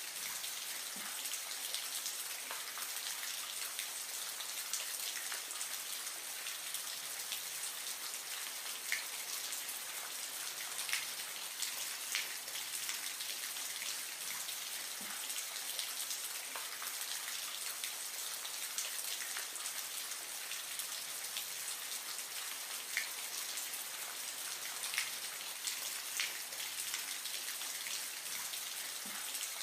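Steady watery hiss with scattered small drips and ticks.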